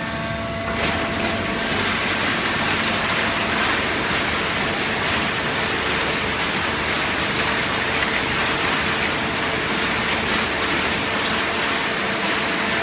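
Hydraulic continuous cardboard baler running: a steady hum under a dense rushing noise that thickens just under a second in.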